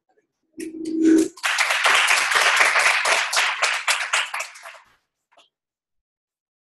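Audience applauding: a few seconds of dense clapping that fades out, preceded by a brief low hum.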